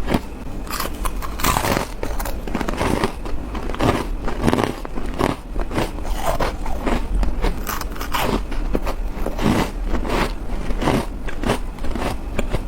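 A person biting into white ice, close up: a steady run of loud, sharp crunches and cracks, about one or two a second, with some chewing between the bites.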